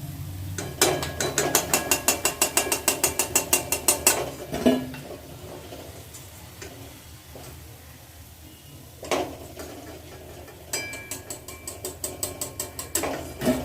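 Rapid, even metallic clinking, like a spoon stirring against the side of a cup or bowl, in two runs of about three seconds each, with a single knock between them.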